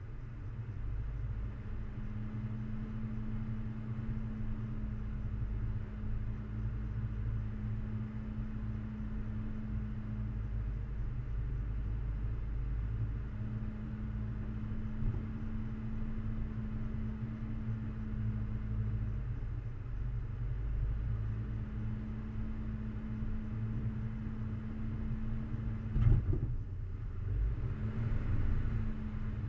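A 4x4 crawling up a rough dirt track: a low, steady rumble of engine and drivetrain, with an engine hum that fades in and out every few seconds. Near the end there is one sharp knock, the loudest sound, followed by a brief rattle.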